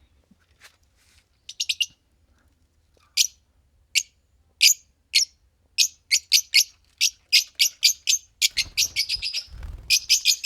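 Fischer's lovebirds giving short, sharp, high chirps. A quick cluster comes first, then single chirps about every half second, growing faster and denser toward the end.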